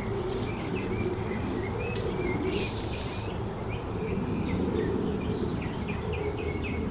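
Crickets chirping: a steady, rapidly pulsing high-pitched trill, with a few faint short chirps or clicks over a low background murmur.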